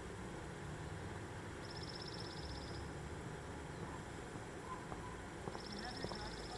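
A small bird's high, rapid trill, about a second long, sung twice about four seconds apart over steady street background noise.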